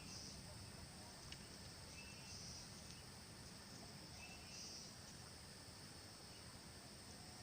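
Faint outdoor ambience: a steady high-pitched insect drone, with a short chirping call repeating about every two seconds and one faint click about a second in.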